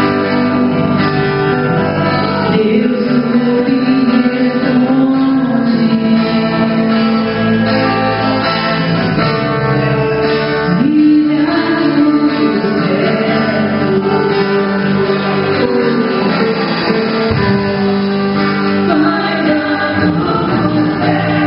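Live Christian worship music: a singer over guitar accompaniment, sung in Portuguese.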